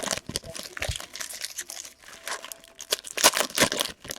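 Plastic trading-card pack wrappers crinkling and tearing as packs are opened and handled, a run of short crackles with the loudest ones about three seconds in.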